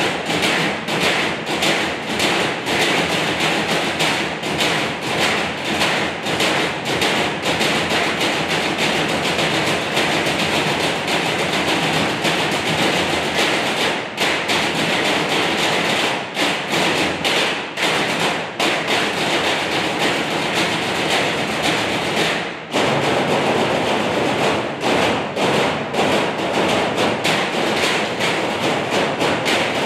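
Percussion ensemble drumming on galvanized metal trash cans, a dense, steady rhythm of thuds and taps with a very short break about three-quarters of the way through.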